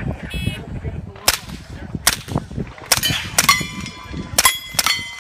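A custom-built suppressed short-barrelled AR-style 9mm carbine firing a quick string of shots at steel plates, the plates ringing as they are hit. A short buzzy shot-timer beep comes just before the first shot.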